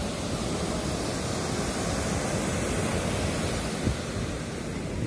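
Ocean surf: waves breaking and foam washing up a sandy beach in a steady rush of noise, with a brief low thump about four seconds in.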